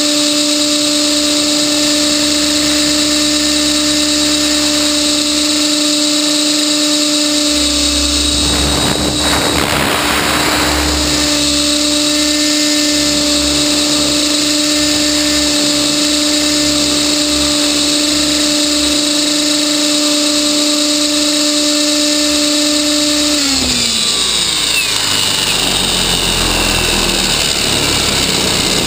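Electric RC helicopter (Trex 600E Pro) heard from its onboard camera: the motor and rotor make a steady high whine, with a brief rushing noise about nine seconds in. Near the end the whine drops in pitch as the motor spools down with the helicopter set down.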